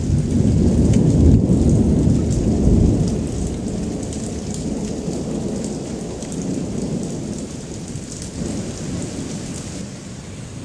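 Rolling thunder rumbling, loudest in the first few seconds and then slowly fading, over rain falling steadily on paving.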